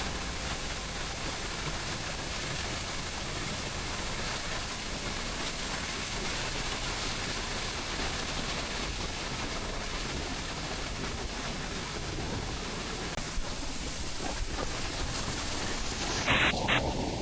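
Steady rushing noise of a large waterfall, Sgwd yr Eira, with a sudden louder burst just before the end.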